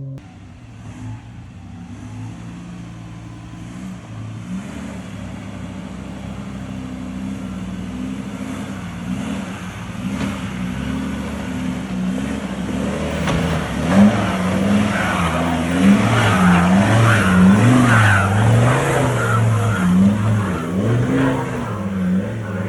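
Four-wheel-drive vehicle's engine revving up and down again and again, getting louder over the second half, with a rough hiss building over the engine.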